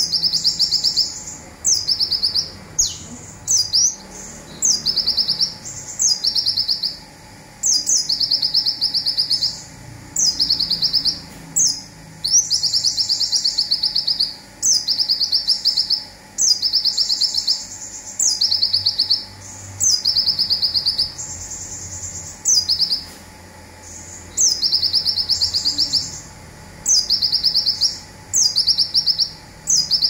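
Van Hasselt's sunbird (kolibri ninja, 'konin') singing the rapid, high, buzzy trills known as the 'zipper' song. The phrases last about a second each and come every one to two seconds, many opening with a quick upward sweep.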